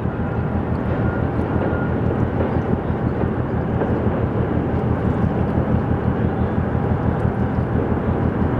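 Tugboat diesel engines pushing a container ship against its berth: a steady, deep rumble, mixed with the general din of a busy container terminal.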